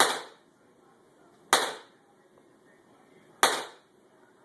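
Three sharp bangs, each with a short fading ring, about one and a half to two seconds apart.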